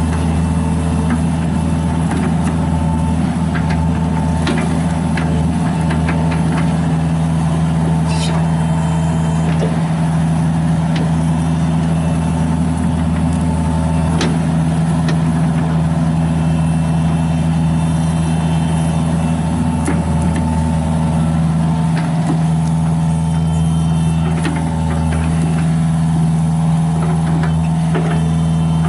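John Deere 50G mini excavator's diesel engine running steadily at an even speed, with a few faint clicks and knocks over it.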